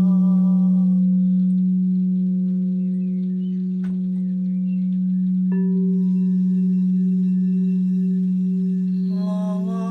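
Singing bowls ringing: a steady low drone throughout, and a higher bowl struck about five and a half seconds in and left to ring. A humming voice fades out about a second in and comes back near the end.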